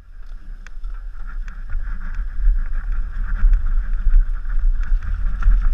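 Wind buffeting a helmet-mounted camera's microphone while a downhill mountain bike rattles over a rocky trail, with scattered clicks and knocks from the bike.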